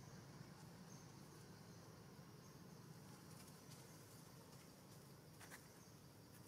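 Near silence: faint outdoor ambience with a steady low hum, a few brief faint high chirps and a couple of soft clicks about five and a half seconds in.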